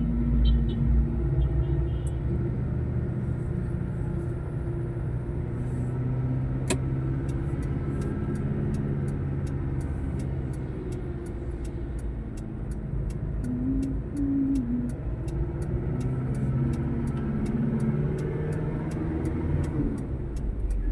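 Car driving in traffic, with a steady low engine and road rumble. There is a single sharp click about seven seconds in.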